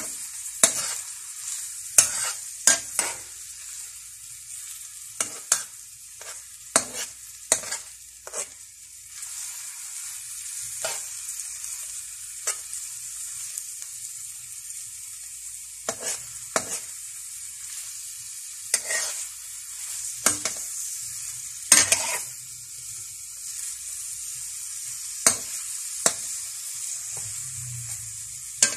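Sliced onions sizzling in hot oil in a metal wok, with a metal spatula scraping and clanking against the wok at irregular moments as they are stirred.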